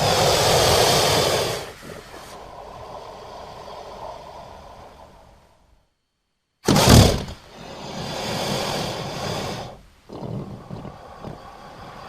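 Cartoon mongoose sound effects played one after another. A noisy effect that is loud for its first second and a half fades out over the next few seconds. After a moment of dead silence, a second effect starts suddenly and loud about halfway through and swells again before dropping to a lower, uneven tail.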